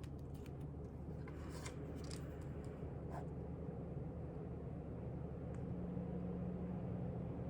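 A few short, crisp paper rustles and clicks over the first three seconds, a book page being turned, over a steady low hum of background noise.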